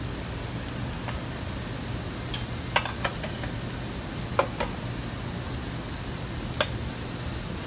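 Chicken paillards and yellow squash slices sizzling on a hot char-grill, a steady hiss, with a few short sharp clicks and taps as squash slices are laid on the grate.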